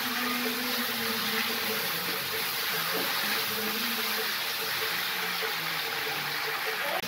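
Dhokli and cluster-bean curry sizzling and bubbling in a hot kadhai as it is stirred with a slotted spoon: a steady hiss, with a faint steady hum underneath.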